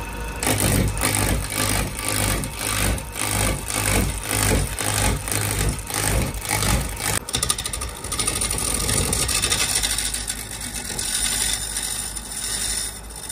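Wood lathe spinning a wooden baluster blank while a hand-held turning chisel cuts into it: a rhythmic scraping chatter, about three strokes a second. About seven seconds in it changes abruptly to a steadier, continuous cutting hiss.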